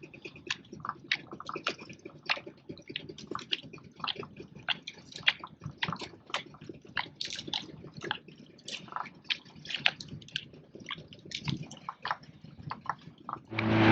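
Water lapping and slapping against the hull of a drifting boat with its engine off, a run of small irregular splashes and drips.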